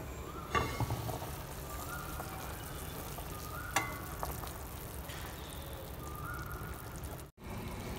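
Ginseng chicken soup bubbling at a steady boil in an enamelled cast-iron Dutch oven. About half a second in there is a clack as the heavy lid is lifted off, and near four seconds a sharp click.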